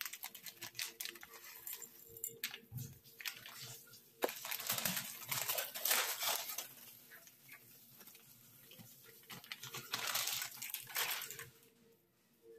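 Dry fried snack mix poured into an aluminium pot, rustling and pattering in two pours, one about four seconds in and another about ten seconds in.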